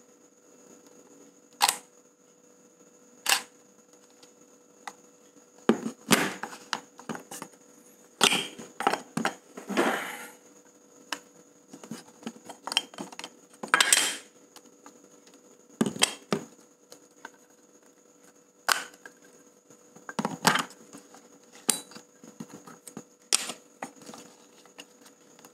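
Canon EOS 650D DSLR body and lens being handled: irregular sharp plastic clicks and short bursts of clatter as the body cap and lens are taken off and the lens is fitted to the mount, over a faint steady tone.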